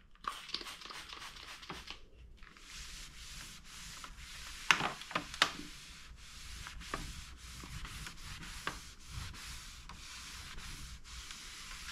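A few short sprays from a trigger bottle of cleaner, then a microfiber cloth rubbing back and forth over a truck's textured plastic grille, with a couple of sharper knocks about five seconds in.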